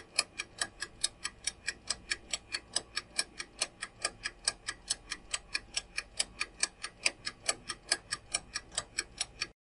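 Clock-tick countdown sound effect: rapid, even ticks, about five a second, that stop shortly before the end as the quiz timer runs out.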